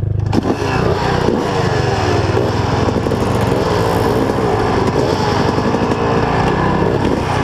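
Several dirt-bike engines running together at idle, their pitch wavering up and down as riders blip the throttles.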